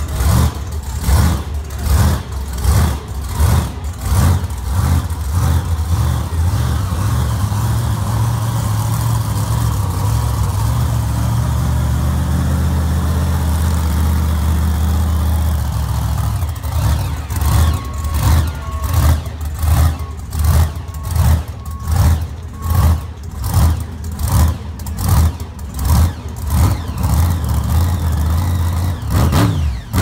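Grave Digger monster truck's engine running loudly. The throttle is blipped in quick, regular revs at first, held at a steady roar for about ten seconds, then blipped again in short, regular revs about one and a half times a second.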